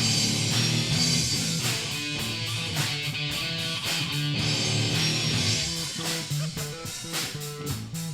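Live rock band playing an instrumental break between sung lines: guitar and bass guitar over a full band, with no singing.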